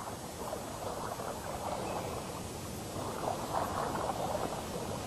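Water ambience: a dense, crackling patter of water, growing a little louder about three seconds in.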